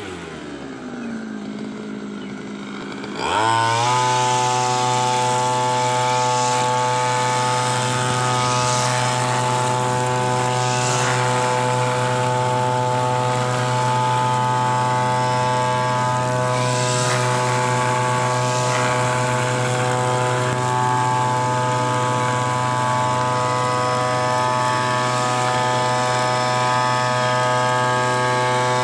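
Petrol backpack brush cutter: the engine drops toward idle for about three seconds, then revs up sharply and runs at a steady high speed while cutting grass.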